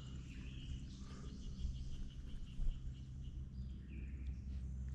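Birds calling from the riverside woods: a run of quick, high chirps, about five a second, over a steady low hum.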